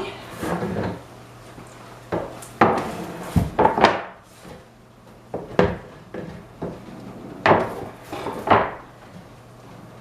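Irregular knocks and clatter of hard objects being handled, about a dozen sharp strikes, coming thickest a few seconds in.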